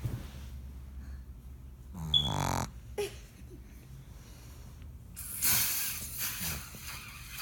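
Pug snoring in her sleep: a short buzzing snore about two seconds in, then a longer, breathier one from about five seconds in. It is the airway snoring typical of a flat-faced breed.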